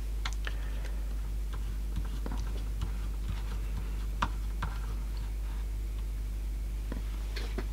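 Sparse small clicks and light scratches of a cotton bud scrubbing old rotten-belt residue off the pulley and clutch parts of a cassette deck's tape mechanism, at irregular intervals. Under them runs a steady low hum.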